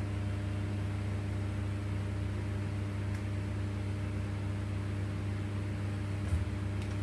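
Steady low electrical hum with an even hiss over it, with a small knock about six seconds in.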